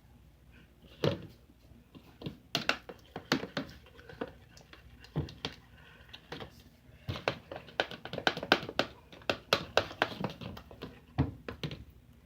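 Irregular light taps and clicks of hard objects handled close by, scattered at first, then in quick runs through the second half.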